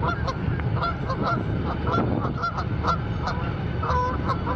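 Canada geese honking over and over, several short calls a second, over a steady low rumble.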